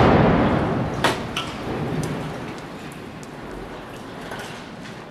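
Rumbling, crackling aftermath of 25 kg of explosive charges blown around the base of a steel-works cooling tower, dying away steadily, with a sharp crack about a second in and a smaller one just after.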